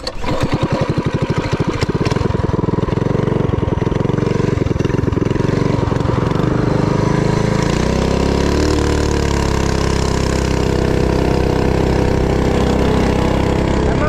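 Harbor Freight Predator single-cylinder mini bike engine starting and running at low revs with distinct firing pulses, then revving up about seven or eight seconds in as the torque converter takes up drive and holding a steady higher pitch as the bike gets under way.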